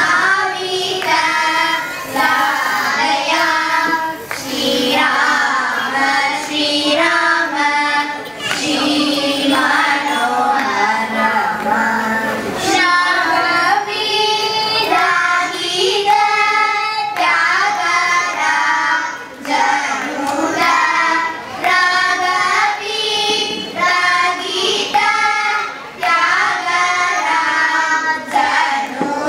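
A group of young girls singing a song together in unison into stage microphones, in continuous sung phrases with short breaths between them.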